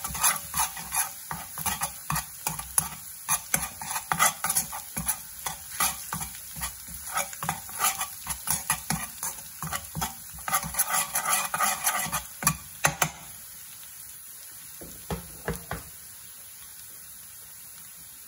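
Crushed garlic sizzling in vegetable oil in a black metal pan while a metal spoon stirs it, scraping and clicking against the pan; the garlic is being fried to a light golden brown. About two-thirds of the way through the stirring stops, a few last clicks follow, and the steady sizzle carries on alone.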